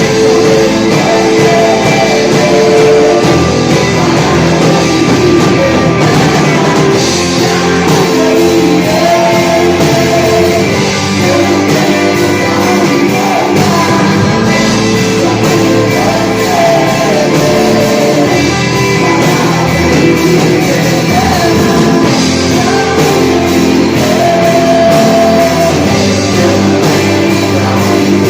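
Band playing rock-style gospel worship music with singing.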